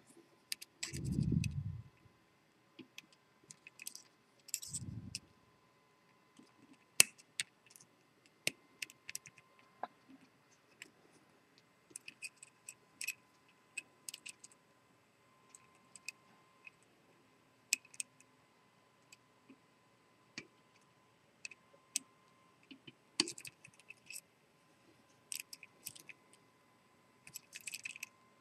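Faint, scattered small metallic clicks and light scrapes of a disc-detainer pick turning and setting the discs of a three-disc Sargent & Greenleaf Environmental padlock, with two soft low thumps in the first five seconds.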